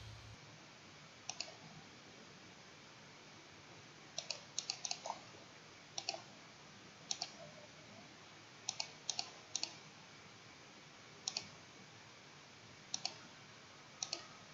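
Computer mouse clicking: about a dozen short, sharp clicks spread irregularly, with a quick run of four about four seconds in and pairs around six to seven and nine seconds in, over a faint steady hiss.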